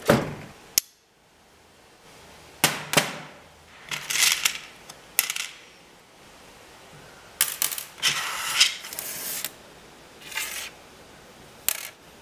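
A steel tool-chest drawer rattles as it slides open. Then small metal nuts and washers clink and rattle in short bursts as they are handled and set down on a steel worktop.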